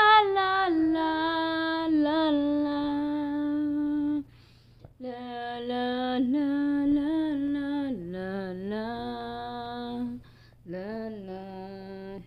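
A woman singing a soft, wordless lullaby to a baby in long, held notes. There are four phrases with short breaks between them, and the later phrases sit lower.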